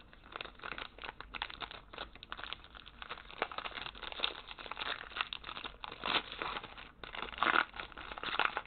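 Foil wrapper of a trading-card pack crinkling as it is opened by hand: a steady run of crackles, with louder bursts about six and seven and a half seconds in.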